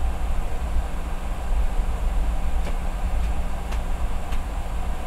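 Steady low rumble inside the cabin of a taxiing Boeing 717, from its idling rear-mounted Rolls-Royce BR715 engines and the rolling airframe. Four faint clicks come between about two and a half and four and a half seconds in.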